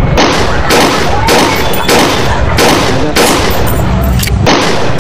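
Pistol gunshot sound effects: about eight shots in quick, uneven succession, each with a short echoing tail. They are fired from two toy pistols at once.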